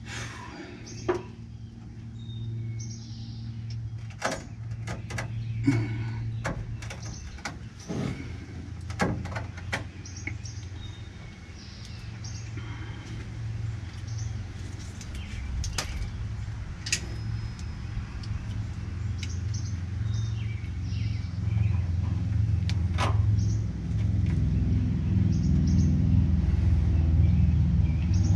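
Scattered clicks and light metallic knocks as fuel-line fittings on top of a pickup's fuel tank are handled and worked by hand, over a steady low rumble that grows louder toward the end.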